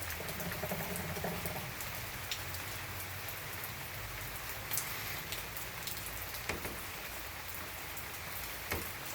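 Steady rain falling, with a few louder single drips landing now and then.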